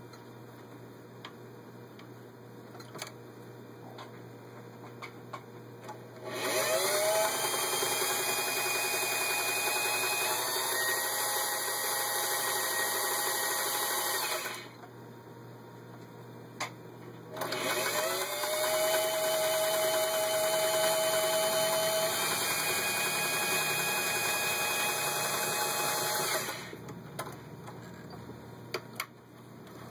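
Singer 503A sewing machine running and stitching with its zigzag cam fitted, in two runs of about eight seconds each. Each run starts with a rising whine that levels into a steady run and then cuts off. There are a few light clicks in the pauses.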